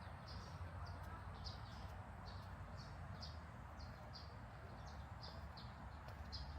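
A bird calling steadily with short, high chirps in quick pairs, about one pair every three-quarters of a second, over a low steady background hum.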